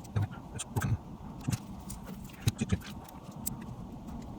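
Parts of a partly disassembled Nokia 3350 mobile phone being handled on a work surface: irregular light clicks and taps, a dozen or so, at uneven intervals.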